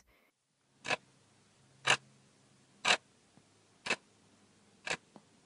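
Countdown-timer clock ticks, five sharp ticks about one a second, marking the seconds left to answer a quiz question.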